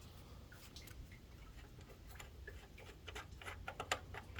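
Ratchet wrench clicking faintly in quick ticks as a loosened bolt is turned out, the clicks coming thicker over the last second or so.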